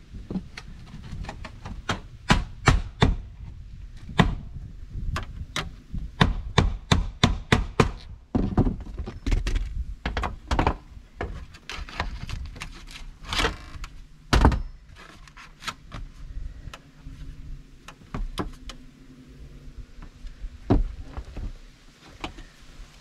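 Claw hammer driving nails through sheet-metal flashing into a wooden platform, the nails held with pliers. Sharp strikes come in quick runs of several blows with short pauses between, thinning out towards the end.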